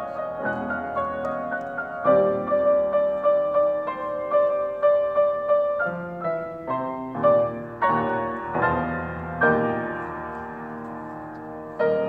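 Grand piano played as a four-hand duet: a toccata of crisp repeated notes and accented chords. It is softer at first and grows louder about two seconds in, with strokes about two a second.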